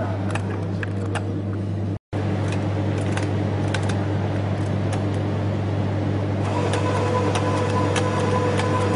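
Rotary capsule filling machine running with a steady low hum and scattered light clicks, cut off for a moment about two seconds in. A steady whine joins it from about two-thirds of the way through.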